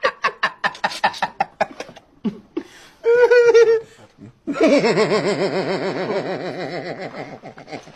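A person laughing in quick rhythmic bursts, then a short pitched cry about three seconds in, followed by a long, loud, wavering laugh-like wail that runs from about four and a half seconds on.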